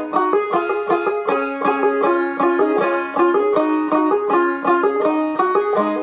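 Gold Tone CC Carlin 12 five-string banjo played clawhammer style in double C# tuning (double C, capoed at the first fret): a steady, rhythmic instrumental passage of quick plucked notes and brushed strums, with no singing.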